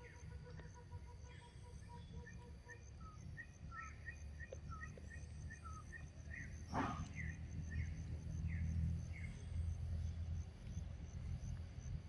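Forest ambience: a bird calling in a long series of short chirps over a steady high insect trill, with a low noise that grows louder in the second half. One sharp sound about seven seconds in.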